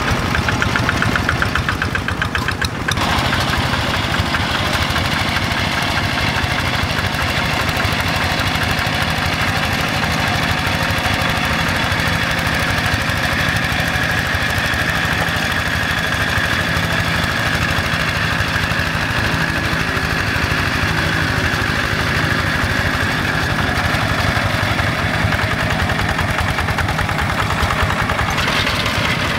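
Single-cylinder Yanmar diesel engine of a Quick G1000 hand tractor running steadily under load as it pulls its implement through paddy mud. The tone shifts suddenly about three seconds in and again near the end.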